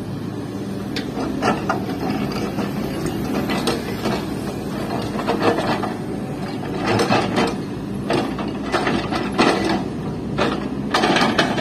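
Hydraulic breaker on a Volvo crawler excavator hammering rock in short bursts of rapid blows, a rattling clatter over the steady running of the excavator's engine.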